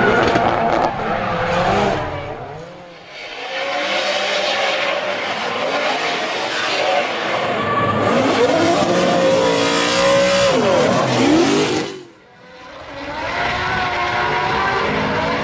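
Drift cars' engines revving, their pitch rising and falling, with tyres squealing as the cars slide. The sound dips sharply twice, about three seconds in and again just after twelve seconds, then picks up again.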